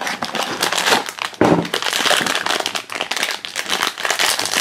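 A cardboard blind box being torn open by hand, then the foil bag inside crinkling and tearing as it is pulled open: a dense run of crackles and sharp clicks.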